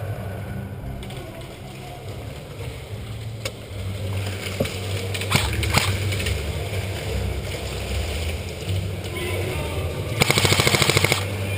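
Airsoft guns firing: a few scattered single shots or BB hits, then a rapid full-auto burst lasting about a second near the end, over a steady low hum.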